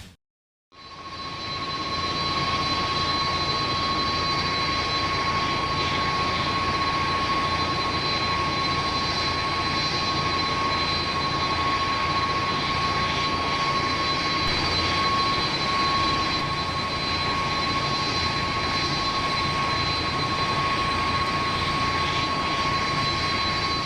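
Aircraft engines idling: a steady rushing noise with a constant high whine, fading in about a second in.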